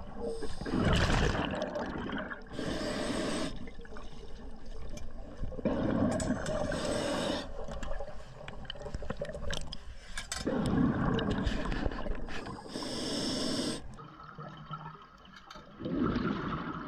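Scuba diver breathing through a regulator underwater: several rumbling, bubbling exhalations about five seconds apart, with short hissing inhalations between them.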